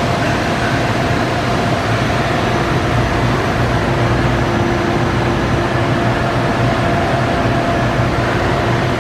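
DCM IG 482 SD rotary surface grinder running steadily: a low hum and a few steady whining tones over an even mechanical rush.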